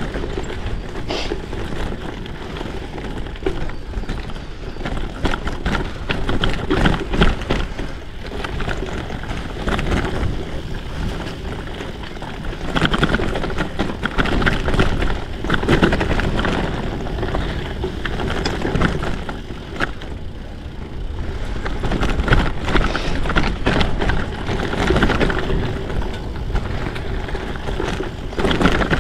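Kona Rove LTD gravel bike on 47 mm WTB Byway tyres ridden over rough ground. Tyre noise runs throughout, with frequent rattles and knocks from the bike and wind on the microphone.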